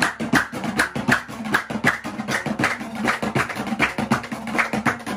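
Afghan dambura, a two-stringed long-necked lute, strummed in fast, even strokes over a steady low drone note, with percussion marking the beat, in an instrumental passage with no singing.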